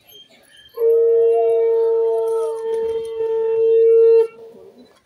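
Conch shells (shankha) blown as an auspicious sound in a Bengali wedding rite. One long steady note lasts about three and a half seconds, starting under a second in. A second, higher conch note overlaps its first half and then falls away.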